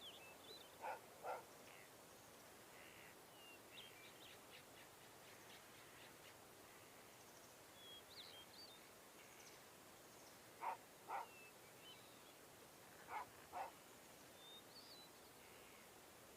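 Faint nature ambience: small birds chirping now and then over a soft steady hiss, with a louder two-note call heard three times, about a second in and twice more near the end.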